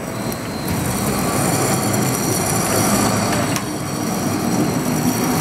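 2012 Switch LP SW low-profile turntable stretch wrapper running a wrap cycle: the turntable turning a pallet load while plastic stretch film feeds from the carriage. A steady mechanical running noise with thin high whines and a couple of sharp clicks, getting louder a little under a second in.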